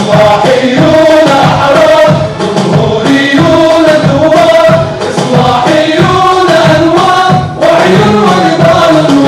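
A group of men singing together into microphones over music with a steady beat.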